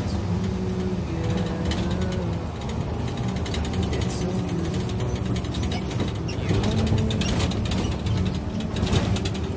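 Cabin of a Hino RG diesel bus on the move: the engine runs under a continuous rattle and clatter of the body and fittings.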